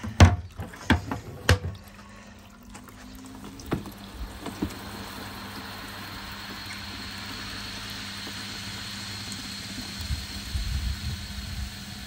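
A few knocks as the lid of a Zanussi SD 2811/W spin dryer is shut. Its motor then starts with a steady hum and the drum spins up, with a faint high whine building. Rinse water gushes from the drain spout into a plastic bucket.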